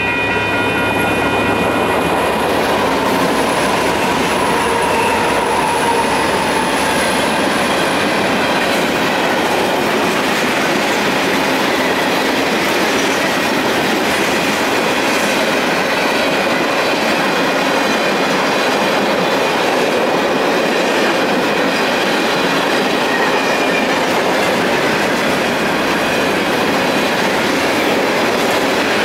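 Union Pacific freight train of tank cars and covered hoppers rolling past at a grade crossing, a steady loud rumble of wheels on rail. Under it the crossing's WCH Type 1.5 electronic bell rings fast, sped up by the cold weather.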